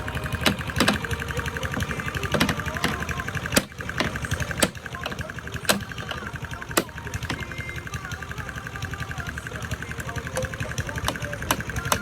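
An engine runs steadily with a fast, even pulse. Sharp knocks and clanks land irregularly over it, about a dozen in all.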